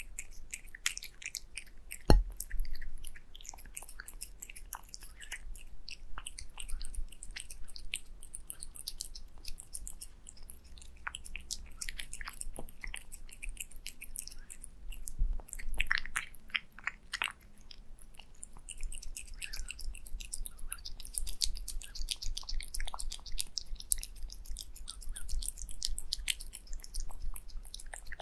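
Close-up sound of a cat eating wet food and egg yolk from a glass plate: a constant run of quick, wet licking and chewing smacks. A single sharp knock about two seconds in is the loudest sound.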